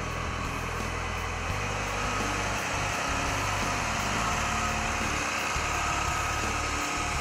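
A 2010 Case IH AF8120 combine's diesel engine running as the machine drives off and turns away: a steady engine drone, with a thin steady whine over it from about two seconds in.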